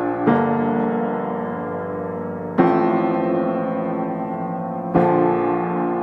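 Background piano music: slow chords held and left to ring, a new one struck three times, about every two and a half seconds.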